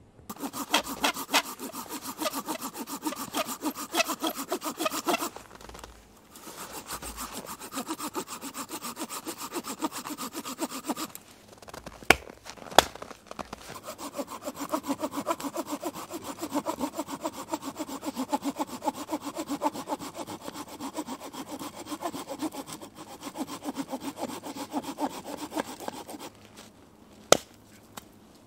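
Hand saw cutting through a log of firewood in quick, even back-and-forth strokes, in three bouts with short pauses. Two sharp knocks fall in the pause near the middle, and another knock comes near the end.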